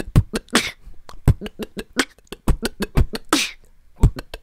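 Human beatbox beat: deep kick thumps and quick hi-hat clicks, with longer hissy snare sounds about half a second and three and a half seconds in. It is built around a vocal 'D' sound effect.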